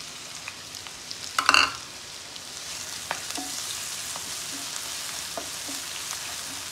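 Chopped onion and green chillies sizzling as they go into hot mustard oil in a non-stick frying pan, with a brief loud burst about a second and a half in, then steady frying hiss. A wooden spatula scrapes and taps against the pan as they are stirred.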